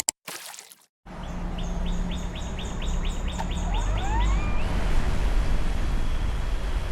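A bird chirping in a quick even series, about four chirps a second for some three seconds, with a few rising whistles near the middle. Under it, from about a second in, runs a steady low rumble.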